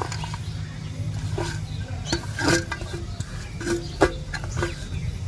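Steel plate knocking and scraping against a stone grinding slab as grated coconut is tipped out of it by hand: a handful of sharp clanks with a short metallic ring, the loudest about four seconds in, over a steady low hum.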